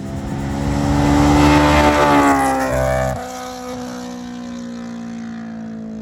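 Honda S2000 AP1's two-litre four-cylinder engine, through a catless test pipe and Invidia N1 exhaust, revs up and is held stuttering against a two-step launch limiter. About three seconds in it lets off and the revs slowly fall away.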